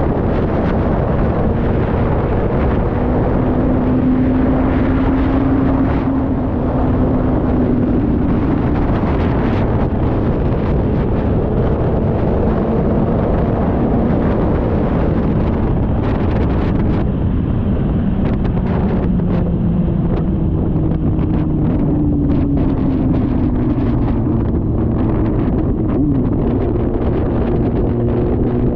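Heavy wind buffeting on a GoPro Hero 9's built-in microphone while riding: a loud, steady low rumble and hiss. Beneath it runs a faint hum whose pitch slowly drifts up and down.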